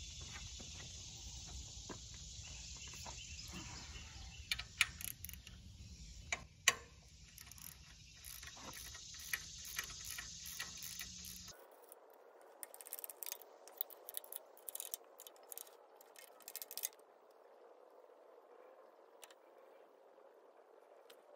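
Ratchet wrench and socket clicking in short runs, with metal tool knocks, as bolts on the tractor's transmission housing are worked. The loudest sharp knocks come about five to seven seconds in, and a denser run of clicks comes in the second half. A steady background hiss stops abruptly about halfway through.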